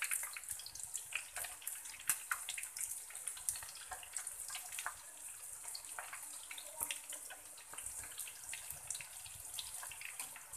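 Breadcrumb-coated chicken and egg strips deep-frying in a pan of hot oil: a steady sizzle with many small pops and crackles.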